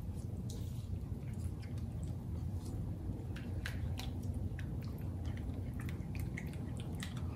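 Silicone spatula stirring a thick, oily spice marinade in a glass bowl: wet stirring sounds with irregular small clicks against the glass, over a steady low hum.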